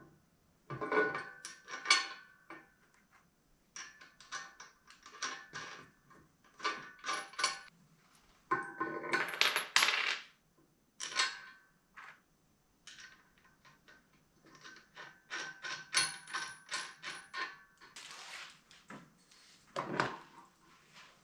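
Small metal hardware clinking and rattling as stem casters, nuts and washers are handled and fitted into the legs of a steel grinder stand. It comes as clusters of quick light clicks and taps, some ringing briefly, with a denser, louder rattle about nine seconds in and a knock near the end.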